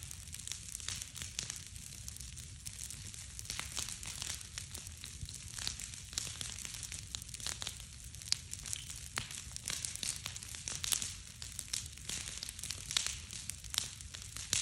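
Large teepee-stacked log bonfire crackling, with frequent irregular sharp pops and snaps over a steady low rumble.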